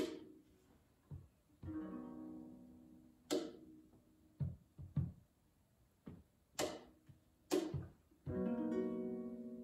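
Small-bodied acoustic guitar played sparsely with no singing: a few chords strummed and left to ring out, between sharp percussive strikes and softer low knocks.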